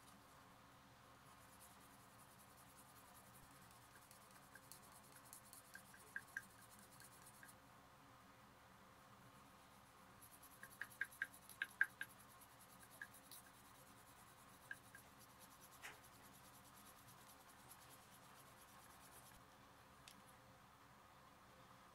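Faint scratchy rubbing of a wool dauber worked along the edge of a leather strap, with a few light clicks and taps, the loudest cluster about halfway through.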